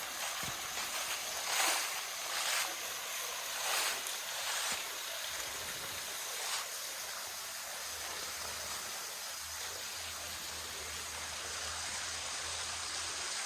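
Steady rush of water from a small waterfall that is barely running, just a trickle, with a few footsteps in the first five seconds.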